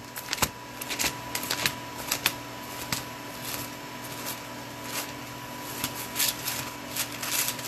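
Thin Bible pages being leafed through by hand to find a passage: irregular paper rustles and flicks, several a second.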